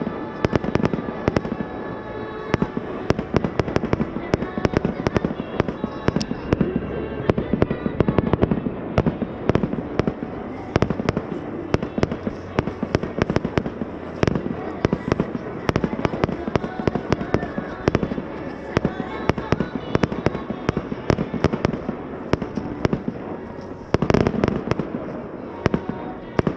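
Fireworks display: a continuous rapid run of sharp bangs and crackles, many a second, with a louder cluster about 24 seconds in.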